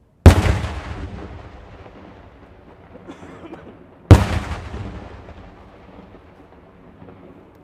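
Two aerial firework shells bursting overhead about four seconds apart, each a sharp, very loud bang followed by a long rolling echo that dies away over several seconds. A few small pops come just before the second bang.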